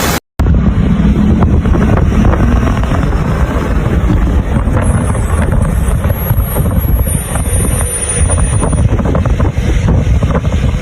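Strong storm wind buffeting the microphone: a loud, steady low rumble that starts after a brief cut about a quarter second in.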